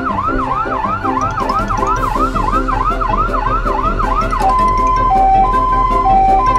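Toy ambulance's electronic siren, a fast rising sweep about three times a second, switching about four and a half seconds in to a two-tone high-low siren. Light background music plays underneath.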